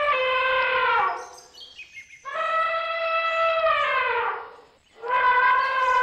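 Elephant trumpeting: three long, horn-like calls in a row, each dropping in pitch as it ends.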